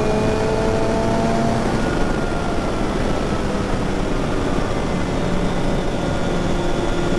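Kawasaki Ninja ZX-6R's inline-four engine running at a steady cruise, with heavy wind and road rush over the microphone. The engine's pitch climbs slightly in the first second or two, then holds steady.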